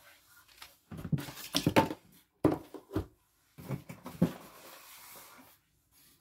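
Panels of a flat-pack IKEA bedside drawer unit being handled during assembly: a run of irregular knocks and bumps, then a short stretch of scraping.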